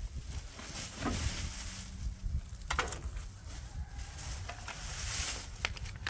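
Scattered knocks and clicks of hands handling hardware while installing parts on a trailer, a few sharp ones standing out, over a steady low rumble.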